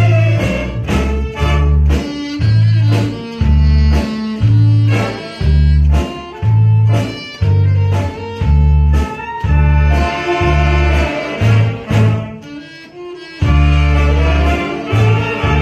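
A large saxophone ensemble, with a few flutes, playing a slow Korean trot song over a deep bass line that pulses about once a second and a light drum beat. The music eases briefly between phrases a few seconds before the end.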